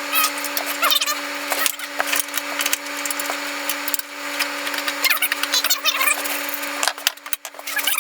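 Dense, irregular clicking, scraping and small squeaks of parts and tools being handled during reassembly work, over a steady hum.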